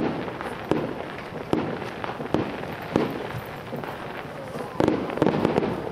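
Fireworks display bursting at a distance: a string of sharp bangs, each followed by echo, about every three quarters of a second, then a short lull and a quick cluster of bangs near the end.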